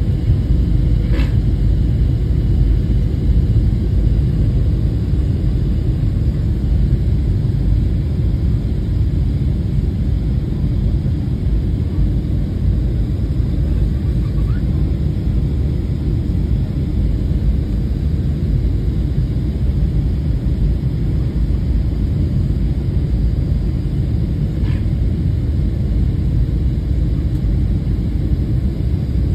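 Steady low rumble of a Boeing 737's jet engines and rushing airflow, heard from inside the passenger cabin as the airliner descends.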